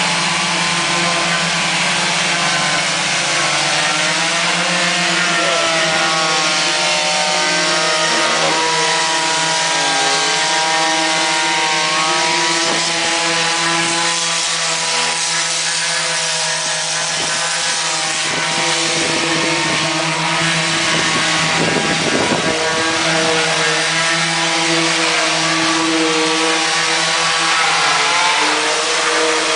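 Several corded electric orbital sanders running together on a fibreglass boat hull, sanding off old antifouling paint. Their motor whine is steady but wavers in pitch as they are pressed on and moved.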